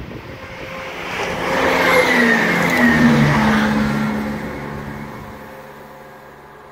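A train passing at speed: it grows louder on approach, its engine or motor tones drop in pitch as it goes by about two to three seconds in, and the sound fades away.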